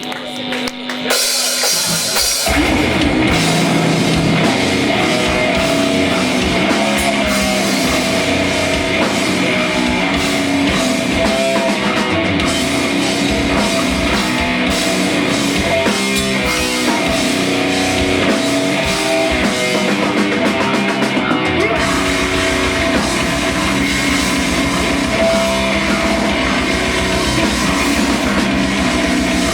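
Rock band playing live, with drum kit and guitars. After a thinner opening the full band comes in about two seconds in and plays on at a steady, loud level.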